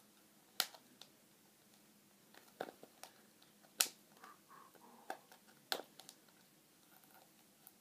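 Hands working the plastic packaging off a hockey puck: sparse, sharp plastic clicks and crackles at irregular intervals, the loudest about four seconds in.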